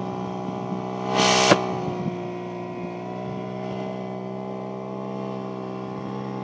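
Scale model Caterpillar 988B wheel loader running with a steady even drone as it works its bucket into a sand pile, with a brief loud hiss just over a second in.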